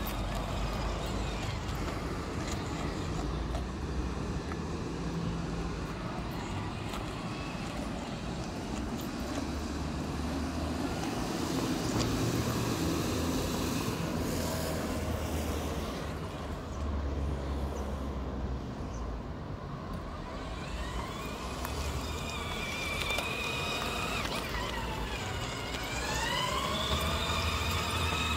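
A child's electric ride-on buggy driving over rough asphalt, its hard plastic tyres making a steady rumble. In the last several seconds a whine rises and falls in pitch.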